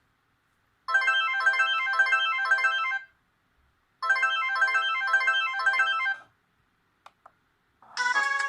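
Audiovox CDM 8400 cell phone ringtone: a short electronic melody of quick notes, played twice with a pause of about a second between. Near the end, after two faint clicks, a different ringtone melody starts.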